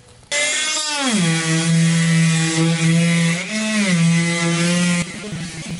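Corded oscillating multi-tool running. It starts abruptly and its pitch drops sharply within the first second, then holds steady with a brief rise and fall about three and a half seconds in, and it cuts off about five seconds in.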